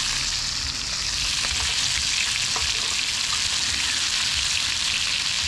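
Seasoned brown trout pieces sizzling steadily in oil in a small frying pan just taken off the camp stove's heat, with scattered small pops and crackles.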